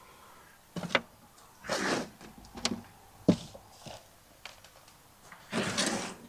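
Gloved hands rummaging through potting compost in a metal wheelbarrow to pick out harvested potatoes: rustling swishes of compost, about two seconds in and again near the end, with a few sharp knocks and clicks against the barrow.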